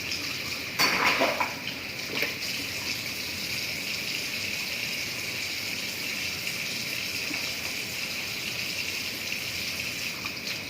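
Water running steadily from a kitchen tap, with a couple of brief knocks about one and two seconds in.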